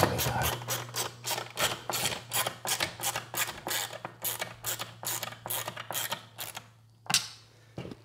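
Ratchet screwdriver clicking as it drives a short screw into a timber window frame, in a steady run of about four clicks a second that stops near the end.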